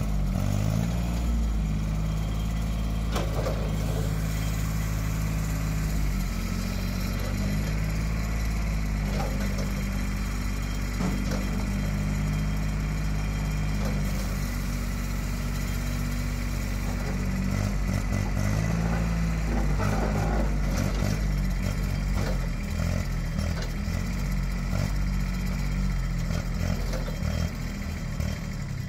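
John Deere 670 compact tractor's three-cylinder diesel engine running steadily as the tractor drives and works its loader, its engine note shifting up and down a few times.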